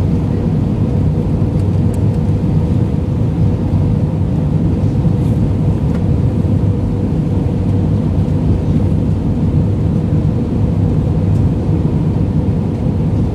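Jet airliner cabin noise on approach to land, heard from a window seat over the wing: a loud, steady rumble of engines and rushing air with a faint steady hum.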